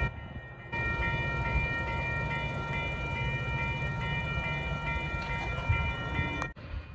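Railroad grade-crossing bell ringing in a steady, even rhythm of about two to three strokes a second, over a low rumble. It cuts off suddenly near the end.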